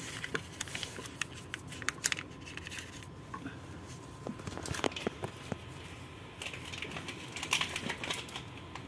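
Faint, scattered scratching and clicking of handling noise: a hand brushing and rubbing over a dusty steel valve flange.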